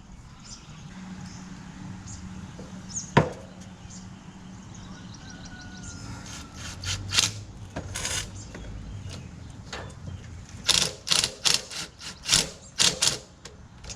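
Sharp clicks and knocks of hand tools working on a school bus window as its screws are tightened back up. There is a single knock about three seconds in, then a quick run of about a dozen clicks and knocks through the second half.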